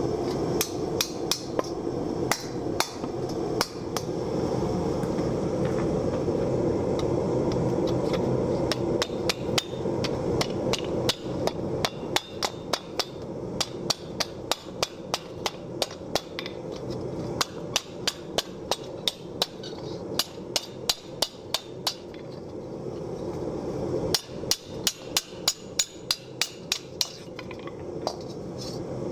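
Hand hammer striking a steel wok blank as it is dished into shape, first over a hollow in a wooden stump and then over a cone-shaped stake in the anvil, in quick strings of blows about two a second. Under the blows a propane forge burner runs with a steady noise.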